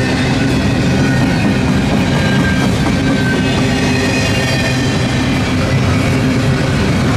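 Freight train passing close by: a loud, steady rolling rumble with a low drone, and thin high squealing tones from the wheels over it.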